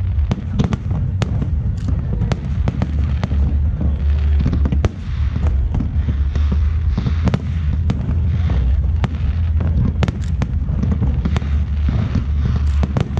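Aerial fireworks display: shells bursting in a rapid, continuous barrage of bangs and crackles, several a second, over a steady low rumble.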